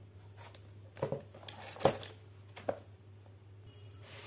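Plastic film around a boxed PoE network switch crinkling as it is handled and lifted, with about five short, sharp rustles and knocks, the loudest about two seconds in. A steady low hum runs underneath.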